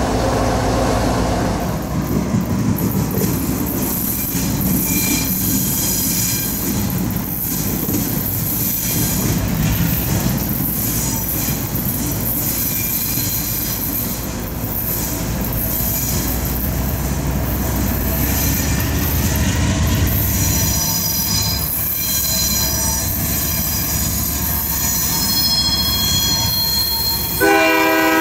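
Norfolk Southern diesel locomotive running past and moving away with a steady rumble. Its wheels squeal thinly on the curve in the second half. Near the end its horn sounds, a chord of several tones.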